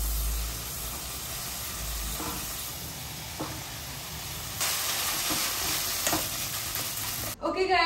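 Food sizzling in a hot frying pan, a steady hiss with a few light knocks, growing brighter and a little louder about halfway through.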